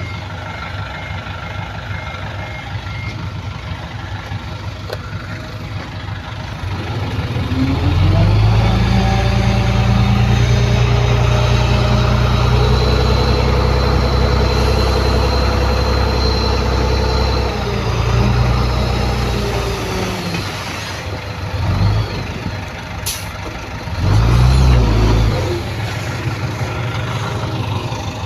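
Heavy diesel earthmoving equipment running: the engine revs up about eight seconds in, holds steady under load for some ten seconds, then drops back toward idle, with another short burst of revs near the end.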